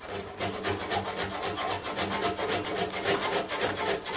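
Handsaw cutting through the end of a wooden plug in rapid, even back-and-forth strokes, trimming it close to the surface of the beam it is glued into.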